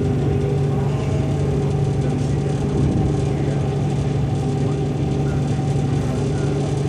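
A ferry's engine running steadily under way: a constant low drone with a few steady hum tones in it.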